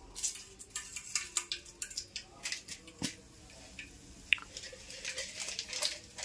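Mustard seeds and dal crackling and spitting in hot oil in an aluminium pan: the tempering at the start of upma. Irregular pops and crackles, with a sharper pop about three seconds in and another just after four seconds.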